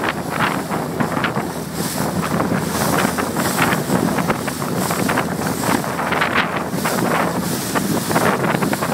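Strong wind blowing across the microphone over the rush and splash of choppy sea water, with frequent gusty surges throughout.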